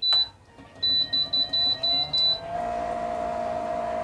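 Philips induction cooktop beeping: one high beep as the power button is pressed, then a run of about six quick beeps as the setting is stepped through. After that the cooktop's hum rises briefly and settles into a steady whine as it starts heating.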